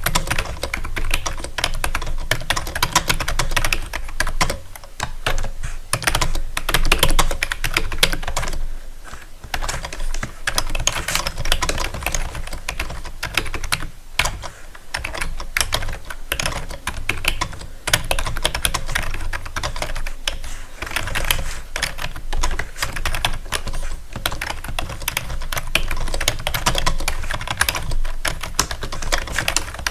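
Keys clicking in fast, continuous typing, with only brief lulls.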